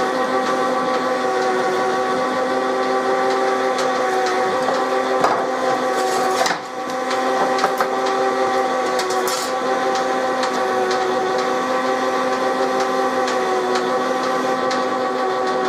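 Workshop drilling machine running steadily while drilling a 6.5 mm tapping-size hole for a 5/16 Whitworth thread, a steady hum with a brief dip about six and a half seconds in and light clicks of the cut.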